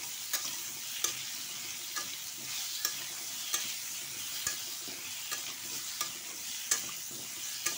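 Potato chunks sizzling in hot mustard oil in a kadai as they are stirred, the spatula clicking and scraping against the pan about once a second over a steady hiss of frying.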